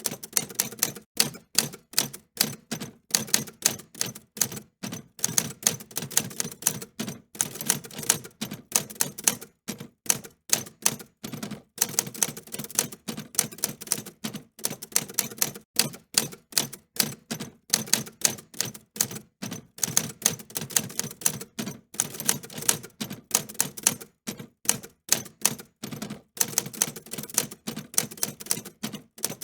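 Typewriter keys being struck in a fast, uneven run of sharp clicks, with brief pauses between bursts of typing.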